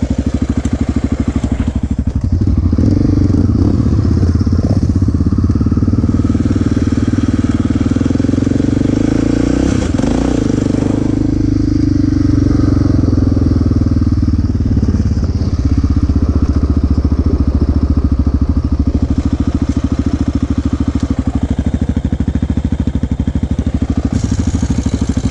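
ATV engine running up close while the quad is ridden along a gravel track. The engine note shifts several times with the throttle and dips briefly, then climbs again, about ten seconds in.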